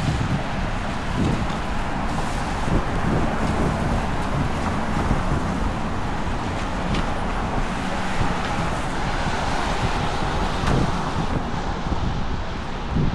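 Steady city street traffic: road noise of cars passing.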